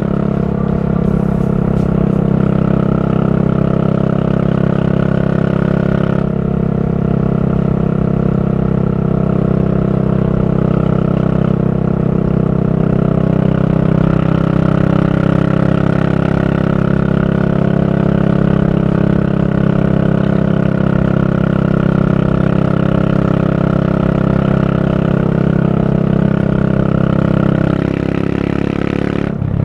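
Yamaha SR400's single-cylinder four-stroke engine running at steady revs through a Goods Tapered Corn slip-on muffler while riding. The exhaust note stays even and dips briefly near the end.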